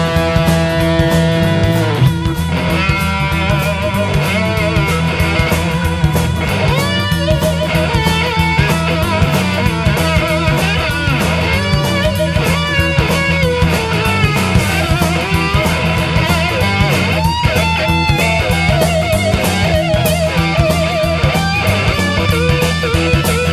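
Instrumental blues-rock played by a full band: an electric guitar lead with bent, wavering notes over bass guitar and a steadily hit drum kit.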